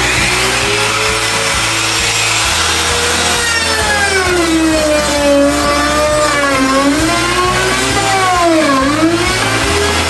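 Electric trim router running at full speed, cutting into a wooden drawer front to recess a drawer lock. Its whine dips in pitch several times as the bit bites under load, most deeply near the end, then recovers.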